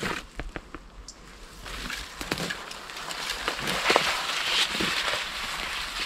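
Fir branches rustling and dry twigs cracking and snapping as someone moves through them. It starts with a few sharp cracks, then swells into busier rustling, loudest about four seconds in.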